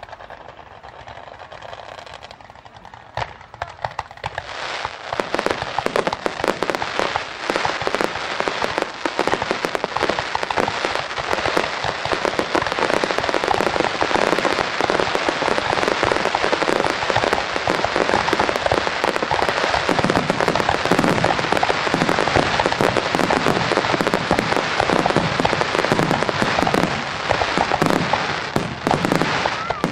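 Aerial fireworks: after a few quieter seconds, a dense, continuous barrage of shell bursts and crackle starts about four seconds in and keeps going without a break.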